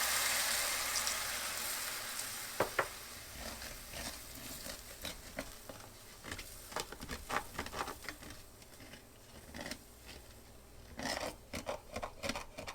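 Chicken broth sizzling in a hot skillet, the hiss loud at first and dying away over the first few seconds as the pan deglazes. Then a utensil scrapes and taps at the pan bottom, loosening the browned bits, with a burst of scraping near the end.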